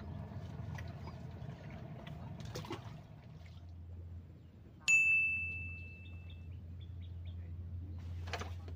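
A single clear bell-like ding about halfway through, ringing out and fading over about a second and a half, over a low steady hum.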